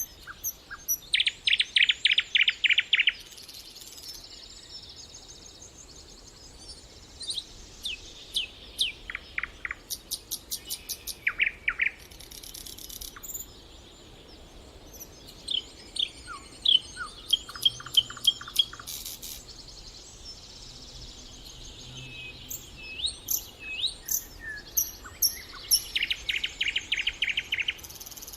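Several songbirds singing and calling: fast trilled phrases near the start and again near the end, with scattered short chirps and whistled notes in between.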